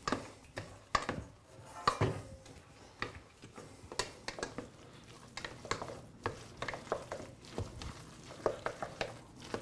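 Wooden spoon stirring and folding bread cubes with apple, celery and raisins in a stainless steel pan, with uneven knocks and scrapes of the spoon against the metal.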